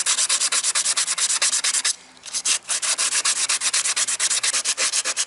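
Sandpaper rubbed by hand in rapid back-and-forth strokes, about a dozen a second, over the painted plastic front bumper of a Porsche Cayenne. It is cutting through layers of paint, primer and filler over a repaired chip. The strokes break off briefly about two seconds in and then carry on.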